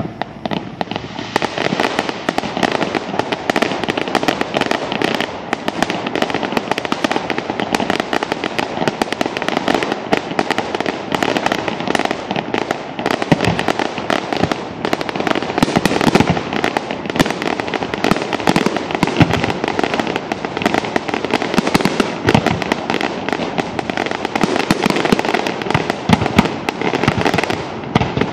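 Fireworks display: a dense, unbroken barrage of bangs and crackling, many reports a second.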